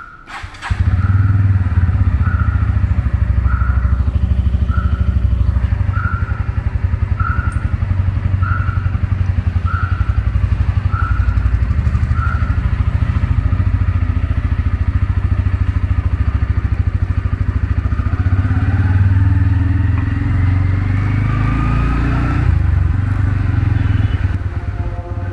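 Bajaj Pulsar N160's single-cylinder engine starting up about half a second in and then running steadily as the motorcycle rolls off at low speed, with a whine that rises in pitch near the end. A short high beep repeats about once a second for the first dozen seconds.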